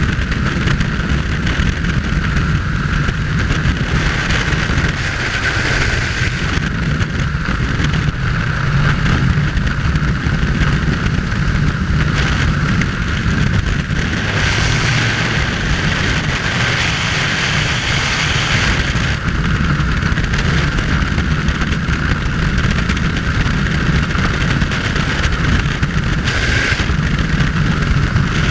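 Loud, steady rush of freefall wind buffeting a helmet-mounted camera's microphone, turning a little hissier for a few seconds in the middle.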